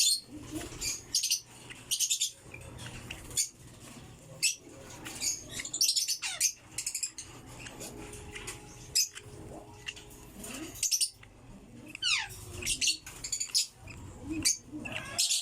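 African lovebirds giving short, high, squeaky chirps in quick clusters, with one longer call falling in pitch about twelve seconds in.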